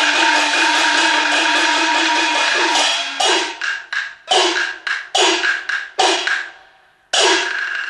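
Chinese opera gong-and-cymbal percussion playing: a fast, dense roll of ringing strikes. About three seconds in it breaks into a series of separate ringing strikes, pauses briefly, then crashes in again near the end with a sustained ring.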